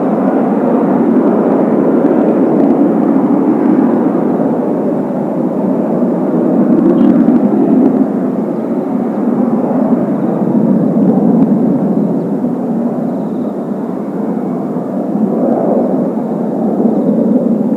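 Kawasaki T-4 jet trainers of a four-ship formation flying overhead: a loud, steady rumble of turbofan noise that swells and eases as the formation passes.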